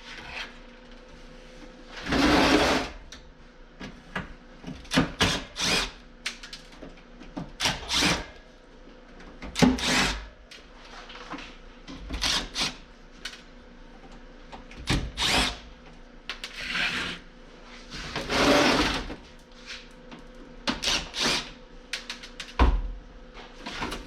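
Power drill running in short bursts to back screws out of an air conditioner's casing, with many sharp knocks and rattles in between.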